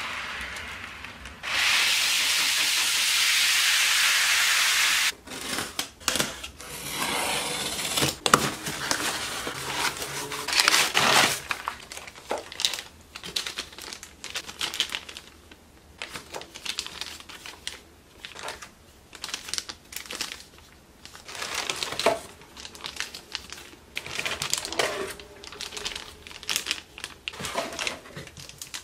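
Plastic bags crinkling and a cardboard box rustling as bagged model shipping containers are unpacked by hand, in irregular crackles. A loud steady hiss runs for about three seconds near the start.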